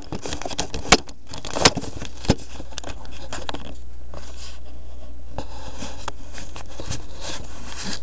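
A window being opened: sharp clicks and scraping from the latch and sash in the first two and a half seconds. Then a steady rush of blizzard wind comes in through the open window.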